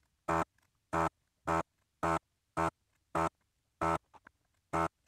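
Desoldering gun's vacuum pump buzzing in short repeated bursts, nearly two a second, as it sucks solder from the pins of a 4164 DRAM chip. The bursts pause briefly a little before the four-second mark.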